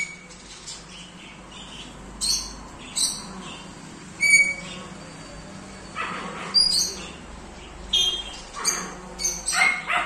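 African grey parrot giving a series of short, sharp calls and whistles, spaced out at first and coming thick and fast in the last few seconds.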